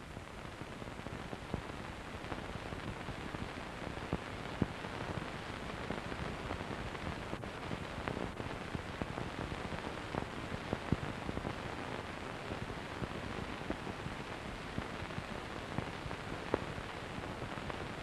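Steady hiss and crackle with scattered clicks and pops, a few sharper ones standing out: the surface noise of an aged archival film soundtrack.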